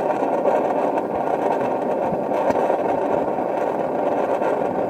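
Propane burner flame of a Norcold 1210 RV refrigerator burning steadily, with a few faint pops. The burner was newly replaced, and the owner does not know why it pops.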